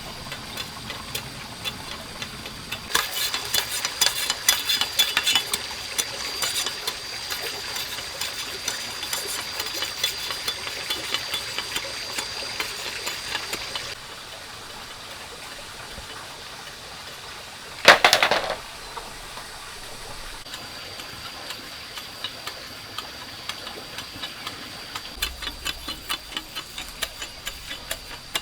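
Bamboo strips being worked by hand: rapid light clicking and tapping, busiest in the first half, with one louder burst about 18 seconds in. A steady high whine runs underneath.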